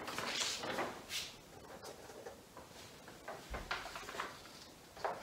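Handling noise as a paper photo card is put up on a magnetic whiteboard: a few short rustles, then small clicks as it is pressed into place.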